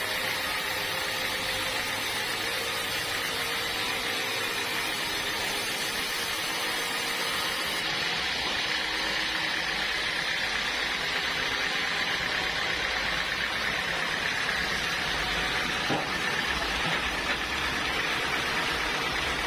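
Sawmill machinery running steadily with a motor or engine noise; the highest hiss drops away about eight seconds in.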